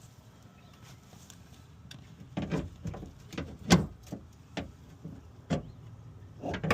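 Irregular knocks and clunks of a replacement window regulator and motor being handled and fitted inside a truck door, about nine of them from a little over two seconds in, the loudest near the middle.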